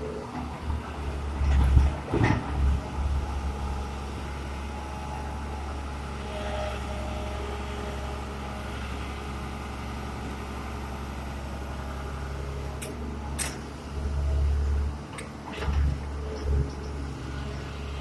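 Heavy diesel machinery running with a steady low rumble that swells louder twice, with a few sharp knocks.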